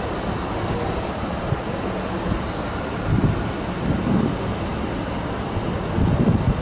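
Stadler FLIRT electric multiple unit approaching slowly, a steady rolling rumble with a few low thumps about three to four seconds in and again near the end.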